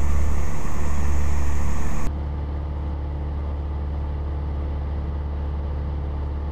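Cessna 172's engine and propeller droning steadily in cruise, heard from inside the cockpit. A radio hiss over the top of it cuts off abruptly about two seconds in, leaving only the drone.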